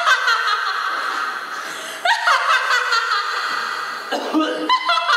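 One person laughing loudly and high-pitched, in three long bursts about two seconds apart, each jumping up in pitch and then trailing off.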